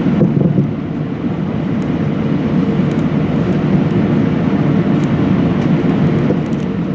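Steady low rumble and hiss inside the passenger cabin of an Airbus A319 taxiing, the jet engines running with the airframe rolling along the taxiway.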